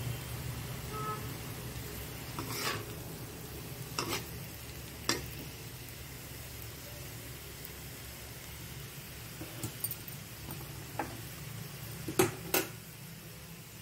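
Potato cubes frying in a pan and being stirred with a spatula over a steady low sizzle. The spatula knocks and scrapes sharply against the pan several times, with the two loudest knocks close together near the end.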